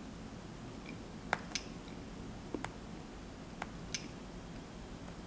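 A plastic stylus tapping the touchscreen of a Palm M515 PDA: about six short, sharp clicks at irregular intervals, some in quick pairs, over a low room hum.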